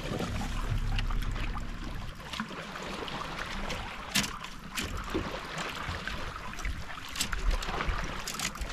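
Small waves lapping against a bass boat's hull, with a low wind rumble on the microphone and scattered sharp clicks and knocks of gear being handled on the deck.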